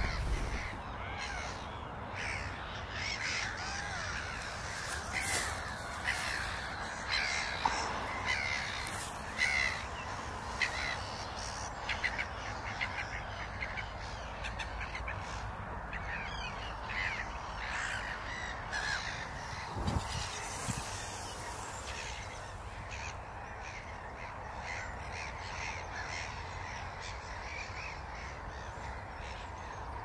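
Harsh, caw-like bird calls, many short ones overlapping, thinning out after about twenty seconds, over a low steady background. A low thump about twenty seconds in.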